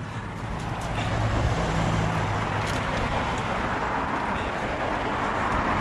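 Road traffic: a passing vehicle's engine hum and tyre noise that swell about a second in and then hold steady.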